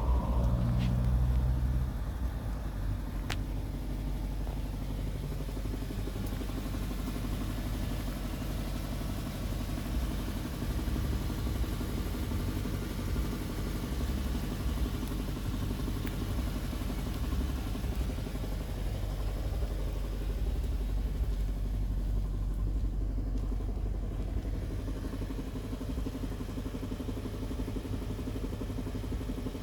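Audi Q7's 4.2 FSI V8 engine running steadily at idle, louder for the first two seconds, with a couple of sharp clicks a few seconds in; it carries a noise or knock whose source the owner is trying to find.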